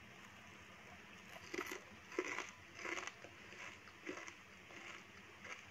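Faint crunching of a fried rice cracker (kerupuk gendar) being chewed, a short crunch about every half second starting about a second and a half in.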